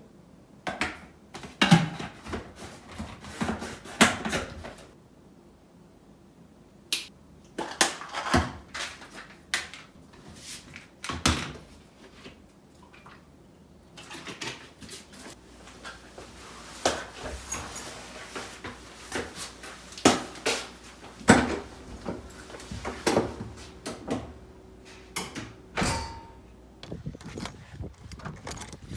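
Scattered clicks, knocks and clatter of plastic containers being handled on a kitchen counter: a scoop working in a tub of protein powder, and lids and bottles being picked up and set down.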